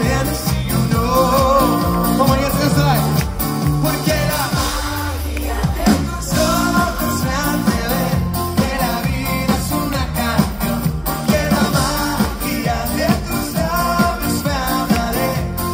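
Live Latin pop band playing with a lead singer, over a steady drum beat and heavy bass.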